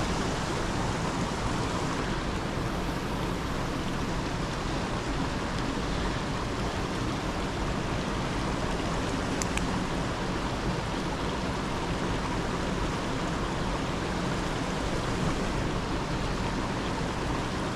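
A waterfall rushing steadily, falling water making an even, unbroken noise, with a single small click about nine and a half seconds in.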